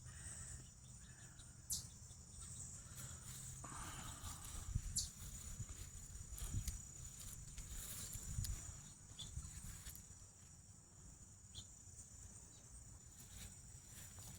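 An insect trilling steadily on one high pitch, with scattered faint clicks and low rumble.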